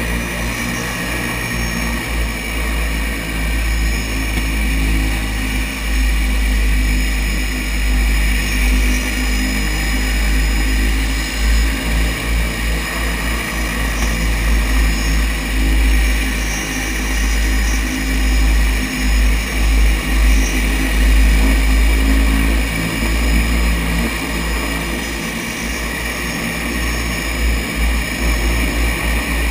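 Seaplane's propeller engines running steadily at low power as it taxis on the water, heard from inside the cockpit: a continuous low rumble under a steady high whine that swells and fades slowly.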